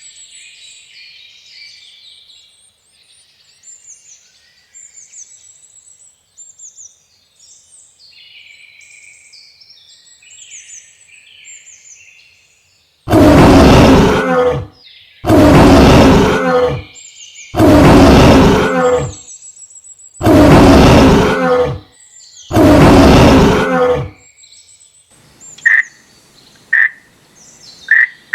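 A large animal roaring: five loud roars in a row, each about a second and a half long. Before them, birds chirp faintly, and near the end come short sharp croaking calls.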